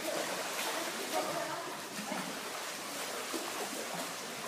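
Indoor swimming pool sound: a steady wash of water sloshing around a swimmer treading water in place, with faint voices in the background.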